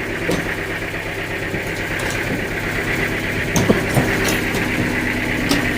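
An engine running steadily with an even hum, with a few light knocks about two-thirds of the way through.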